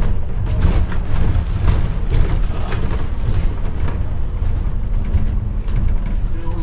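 Double-decker bus on the move, heard from its upper deck: a loud, steady low rumble of engine and road, with scattered short knocks and rattles.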